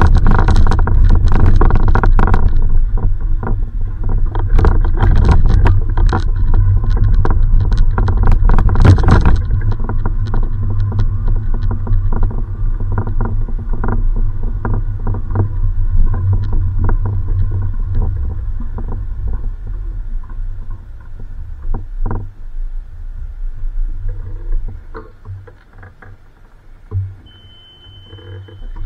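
Heavy low rumble and rustling from a body-worn camera's microphone as the wearer walks, with scattered knocks; it dies down over the last third. A short high beep sounds near the end.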